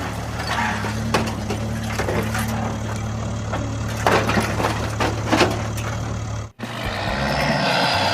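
RC construction machine working: a steady low motor hum with scattered clanks and knocks. About six and a half seconds in it cuts off abruptly and gives way to a noisier, hissing machine sound.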